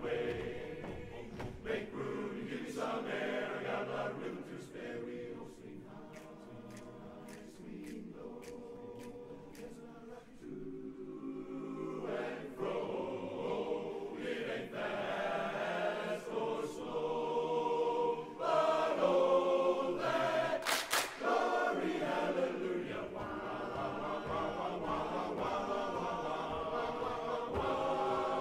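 A large men's barbershop chorus singing a cappella in close harmony, dropping softer a few seconds in and then swelling louder later on.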